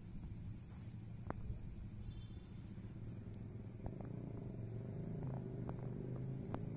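Steady low hum from the Garut–Cibatu train standing at the platform after arriving, under a steady high trill of crickets, with a few faint clicks.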